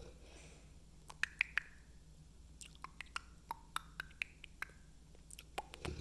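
A sleeping pet twitching in a dream, making scattered short soft clicks and smacks: a quick cluster about a second in, then a looser run of them from about two and a half seconds on, over a low steady hum.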